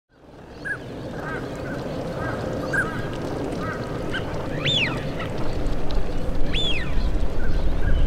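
Waterfowl calling on a pond: many short repeated calls, and twice a loud whistle that rises and falls. A low rumble grows from about halfway.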